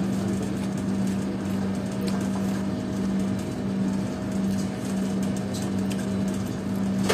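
A steady machine hum with a constant low pitch, with faint small clicks and soft sounds of rice being mixed by hand and chewed.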